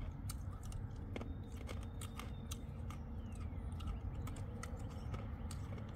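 Hard, decades-old pressed candy tablets being crunched and chewed: irregular sharp clicks and crackles over a steady low rumble.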